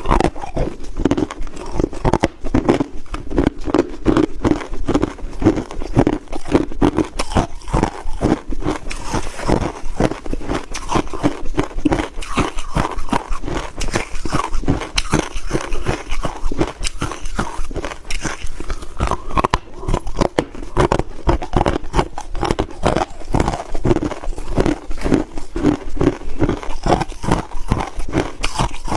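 Crushed ice being bitten and chewed close to the microphone: a continuous run of rapid, irregular crunches.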